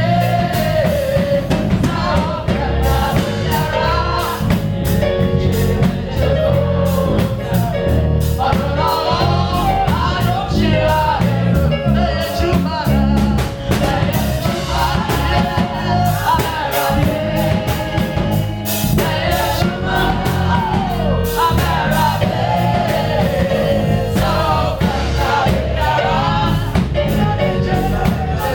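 Congregation singing a gospel praise song with a band, led by a voice over a steady drum beat and bass.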